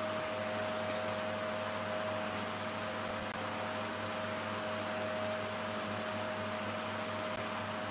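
Steady hum and hiss of a running appliance motor, with a constant thin whine.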